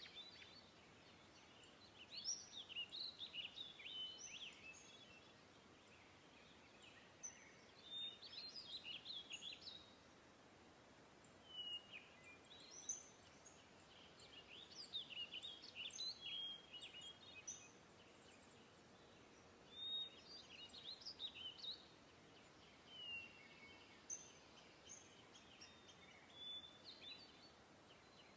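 Faint birdsong: bouts of quick chirps and sweeping high notes every few seconds over a low hiss.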